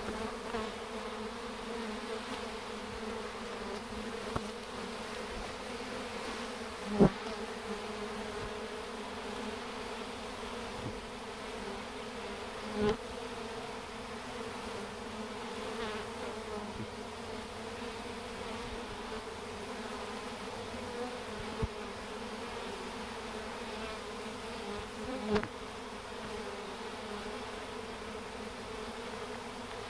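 A honeybee swarm humming steadily as it walks into a hive box, drawn in by its queen's pheromone. Now and then a single bee flies close by, briefly louder, a few times.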